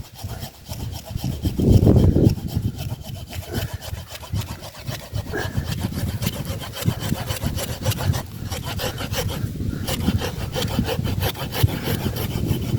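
Drywall saw cutting through a tree root in quick, steady back-and-forth strokes, with a louder low thud about two seconds in.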